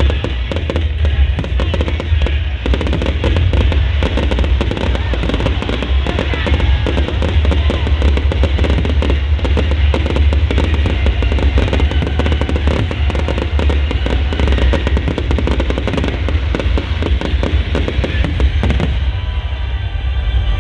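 Fireworks going off in a dense, rapid barrage of crackles and pops with heavy low booms, over show music; the crackling stops shortly before the end.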